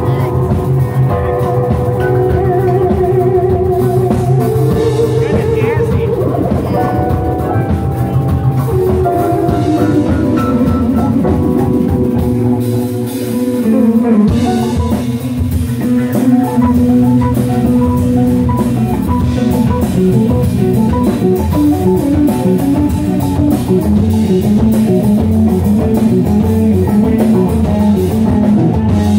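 Live rock band playing: drum kit, electric guitar and keyboard. Held notes give way about halfway through to a faster, repeating riff.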